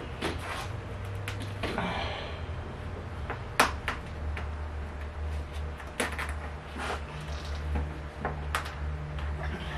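Scattered clicks and knocks of Porsche 924 interior trim being pried and handled, with a scraping rustle about two seconds in and the sharpest knock a little after three and a half seconds, over a steady low hum.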